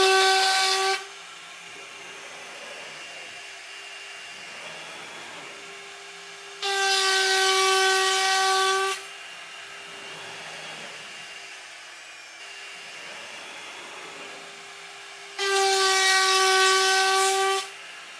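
A CNC router's air-cooled spindle is turning a quarter-inch upcut spiral bit at 24,000 RPM. The bit cuts straight quarter-inch-deep passes through wood at 650 to 750 inches per minute. Each pass is a loud pitched howl with a high hiss, lasting about two seconds: one ends about a second in, and two more follow about seven seconds apart. Between passes the spindle keeps running with a quieter steady whine at the same pitch.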